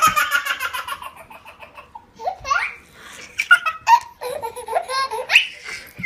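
Baby belly-laughing: one long pulsing laugh at the start, then shorter bursts of laughter with a couple of rising squeals.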